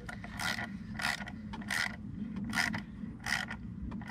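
Hand ratchet turning the Torx T30 screws of a Can-Am Ryker's tail-light mount, clicking in short strokes about every half second to second, over a steady low hum.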